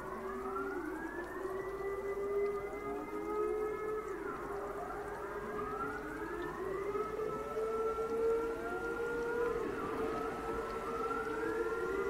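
Dutch public warning modulator sirens sounding a test signal: a wailing tone that rises and falls in pitch every few seconds, with several sirens heard overlapping out of step.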